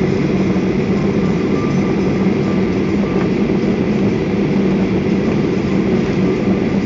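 Steady rumble inside an airliner cabin while it taxis after landing: the jet engines running at low power and the wheels rolling on the taxiway, with a low hum.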